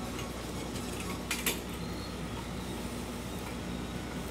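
Two light metallic clicks in quick succession about a second and a half in, from piston rings being fitted onto an aluminium piston by hand, over a low steady hum.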